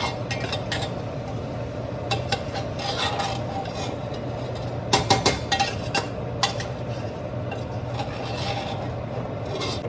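A spoon stirring and scraping in a pot of half-cooked mutton curry whose bottom is starting to catch, with scattered scrapes and a cluster of ringing clinks against the pot about five seconds in. A steady low hum runs underneath.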